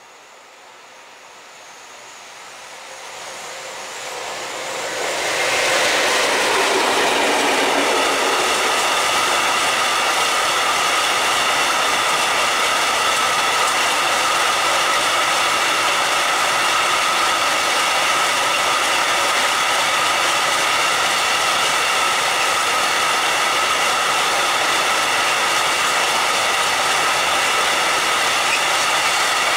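Freight train passing: the sound swells over the first six seconds as the Newag Dragon 2 electric locomotive comes up and by. Then a long string of open coal wagons rolls past steadily, with a high ringing tone over the rolling noise.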